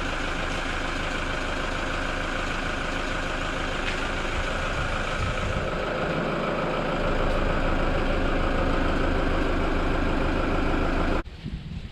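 Toyota Hilux engine idling steadily, a little louder from about seven seconds in, then cut off suddenly near the end.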